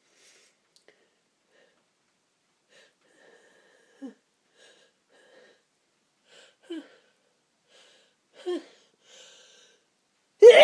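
A person working up to a sneeze: three short catching breaths, each a quick voiced gasp falling in pitch, about two seconds apart and growing louder. A loud sneeze comes right at the end.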